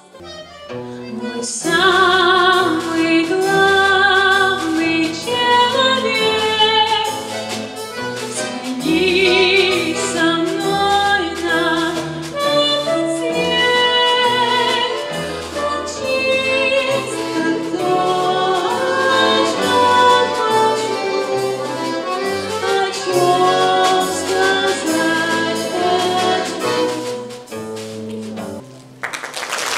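Young female vocalist singing a song with vibrato into a microphone, accompanied by a live folk-instrument ensemble of balalaikas with a steady bass line. The song ends about two seconds before the end, and applause starts just at the close.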